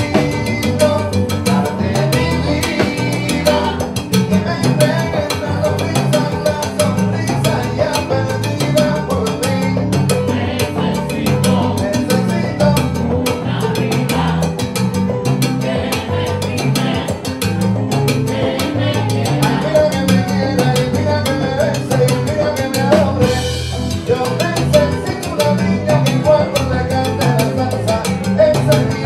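Live Cuban timba (salsa) band playing. Drum kit and percussion drive a steady beat under a lead singer and a backing vocal chorus.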